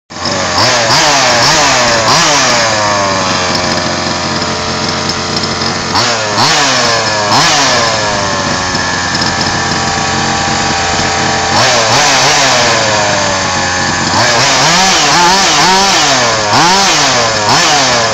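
Two-stroke petrol engine of an FG 4WD large-scale RC buggy, idling while the car stands still. It is revved in short throttle blips several times, with a quicker run of blips near the end.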